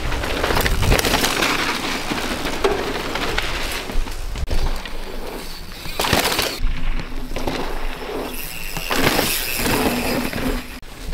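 Mountain bike ridden fast down a dirt trail, heard on a point-of-view action camera: rushing wind noise with tyres on dirt and the bike clattering and rattling over bumps, with repeated sharp knocks.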